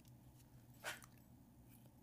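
Near silence with a single short plastic click about a second in, Lego pieces being pressed together by hand.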